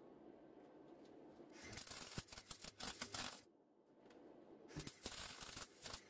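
MIG welder arc crackling while tack-welding vintage cutlery spoons together, in two bursts: one of about two seconds starting about a second and a half in, and another starting near the end.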